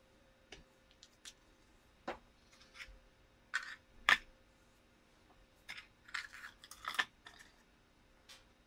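Off-camera handling noises: a scattered series of light taps, clicks and short rustles as small objects are picked up and set down, the loudest a sharp tap about four seconds in, over a faint steady hum.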